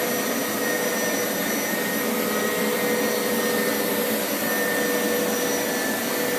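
Hoover Power Scrub Elite carpet washer running steadily: a constant motor whine over the rush of its suction.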